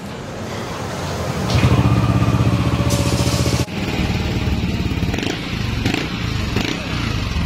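Yamaha NMAX V2 scooter's single-cylinder engine running through a SMOK aftermarket power pipe exhaust. It gets louder about one and a half seconds in, drops off abruptly a couple of seconds later, then idles steadily.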